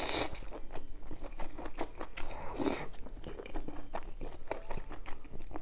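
Close-miked eating sounds: a slurp as a mouthful of spicy noodle soup goes in, then wet chewing with many small mouth clicks.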